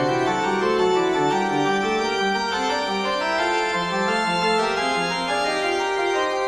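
Organ music: slow, sustained chords whose notes change in steps, at a steady level.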